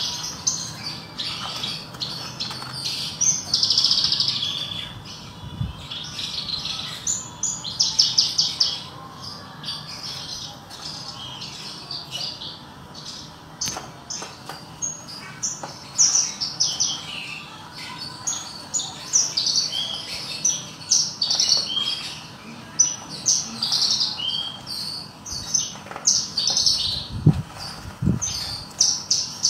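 Caged Horsfield's bushlark (branjangan, parva form) singing a continuous, varied song of quick high chirps and rapid trills, with two low thuds near the end.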